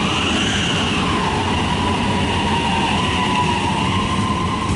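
High Capacity Metro Train, an electric multiple unit, pulling away from the platform. Its traction motors give a whine that rises in pitch at the start and then holds steady over the rumble of the wheels.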